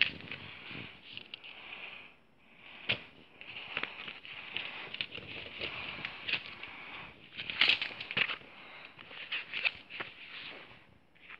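Paper inserts and leaflets being handled: irregular rustling with scattered sharp taps and clicks, loudest about 3 s in and again around 7.5 to 8 s in.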